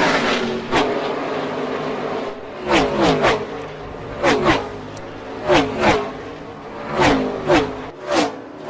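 Gen 6 NASCAR Cup cars' V8 engines at racing speed flashing past close by, one after another. At first a steady engine drone with a falling pitch. From about two and a half seconds in, about ten cars go by in quick clusters of two or three, each a brief burst whose pitch drops sharply as it passes.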